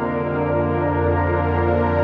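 Ambient background music of long, sustained chords with no beat.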